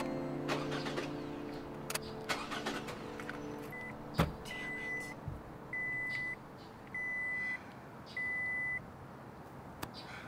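A car's electronic warning chime beeping: a short beep, then four identical high, even beeps about a second apart in the second half. A single thump comes about four seconds in, and soft music fades out over the first couple of seconds.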